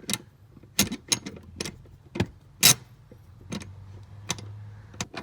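Irregular sharp metallic clicks and clinks of hand tools and seat-mounting bolts being handled, about a dozen, the loudest about halfway through, over a faint low hum.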